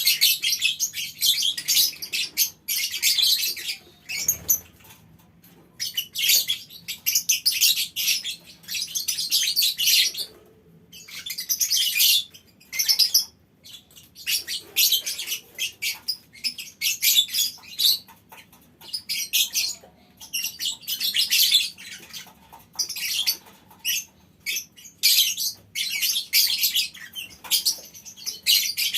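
Several lovebirds in a small colony aviary chattering with rapid, high-pitched trills. The calls come in repeated bouts of one to two seconds with short pauses between them.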